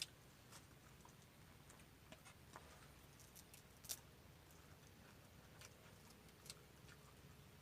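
Near silence with faint, irregular small clicks and ticks, the sharpest about four seconds in.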